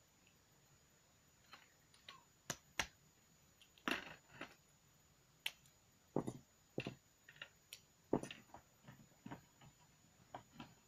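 Irregular plastic clicks and taps of Snap Circuits pieces being handled and snapped onto the plastic base grid, with a few louder knocks about four and eight seconds in.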